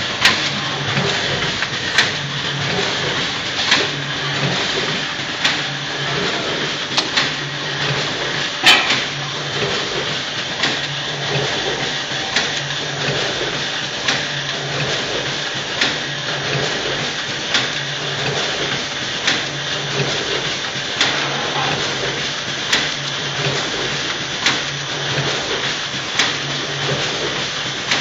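Automatic weighing and horizontal bagging machine running while it packs monosodium glutamate granules, a steady mechanical hum with a sharp clack about every second and a half to two seconds, one per machine cycle.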